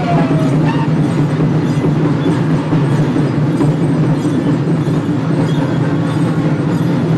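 Many drums beaten together in a steady, dense, continuous rhythm for the dance.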